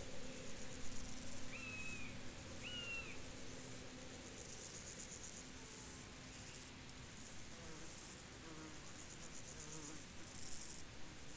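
Field ambience of insects trilling in repeated bursts of about a second, high and rapid. Two short whistled notes come about two seconds in.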